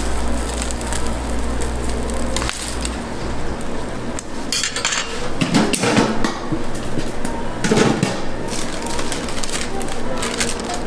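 Metal spatula and tongs clicking and scraping against a flat steel griddle, with two louder bouts of scraping around the middle. A low hum underneath stops about two and a half seconds in.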